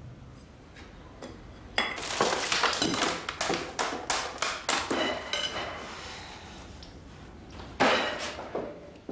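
Clinks and knocks of kitchen rubbish being handled: a small metal tin and packaging clattering over a full bin bag. The knocks come thick between about two and five seconds in, with one more sharp knock near the end.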